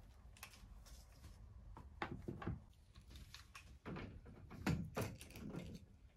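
Faint clicks, taps and knocks of things being handled at a metal wire wall rack, with a few sharper knocks about two seconds in and again around the four-to-five-second mark.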